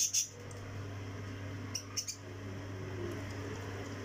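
Hot oil sizzling steadily around ring samosas deep-frying in a wok, over a steady low hum, with a couple of light clicks about two seconds in.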